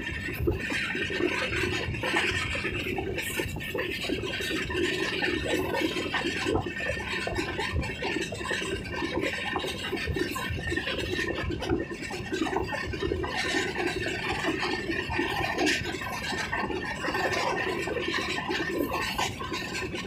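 Passenger train running steadily, heard from inside a coach with an open window: continuous rushing and rattling noise of wheels on rails and the moving coach.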